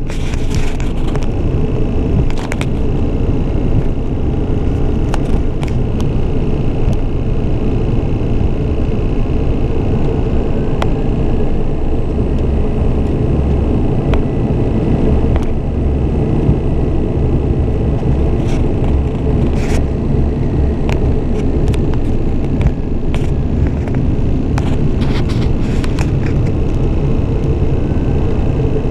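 Steady, loud rumble of a Beechcraft King Air 200 twin-turboprop on the move: engine, propeller and airflow noise, with a faint high steady whine through the first half and scattered light clicks.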